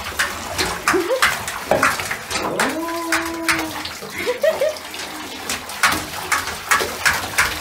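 Water poured from a plastic jug splashing over a wet German Shepherd and into a bathtub, in repeated short splashes. A few short whines come in between, the longest about three seconds in.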